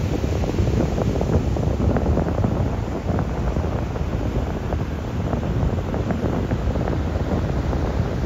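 Ocean surf breaking and washing up the beach in a steady rush, with wind buffeting the microphone and adding a low rumble and crackle.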